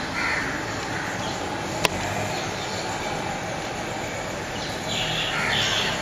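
Rough, harsh bird calls: a couple in the first second and a longer run near the end, over steady background noise, with a single sharp click about two seconds in.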